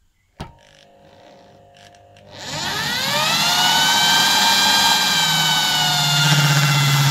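Electric drill with a twist bit boring into a steel flat bar: a sharp click near the start, then about two seconds in the motor spins up with a rising whine and settles into a steady run, with a deeper hum building toward the end.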